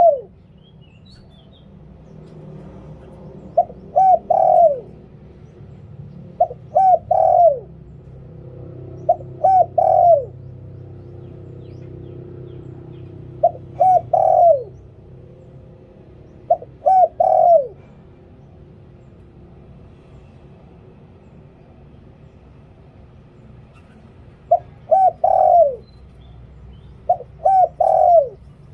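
Spotted dove cooing: phrases of two or three short coos, the last one sliding down in pitch, repeated about every three seconds with a longer pause midway. A faint low rumble lies underneath.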